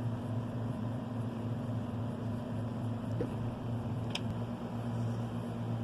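Steady low mechanical hum, with one faint click about four seconds in.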